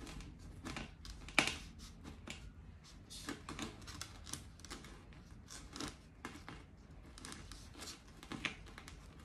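Knife slowly cutting through a cowboy cactus stem: a series of irregular crisp crunching clicks as the blade works through the fleshy ribbed stem.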